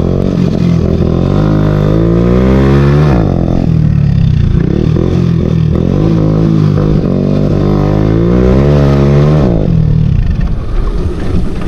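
Hero Honda motorcycle's single-cylinder engine, loud through an M4 exhaust with no dB killer, accelerating under way. Its pitch climbs for about three seconds, drops sharply, climbs again for about five seconds, then falls away near the end.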